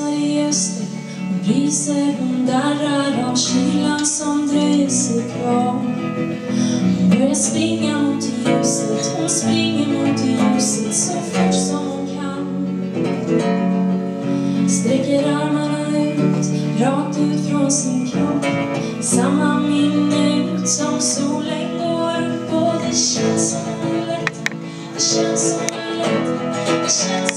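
A woman singing a song over live archtop guitar accompaniment.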